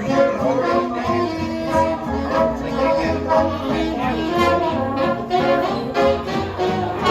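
Brass-band jazz music with horns such as trombone and trumpet playing over a steady pulsing bass.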